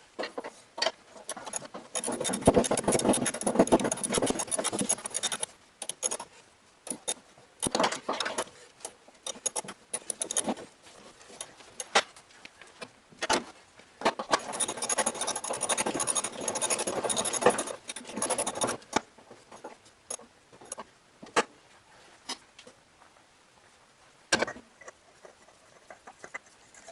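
Hand tools clicking and rattling against metal while working on an engine: two stretches of rapid clicking a few seconds long, with scattered single clicks and knocks between.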